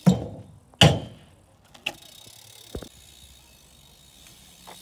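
BMX bike hitting a concrete skatepark ledge: two hard impacts less than a second apart at the start, a few lighter knocks as it rides along, and another hard impact at the end.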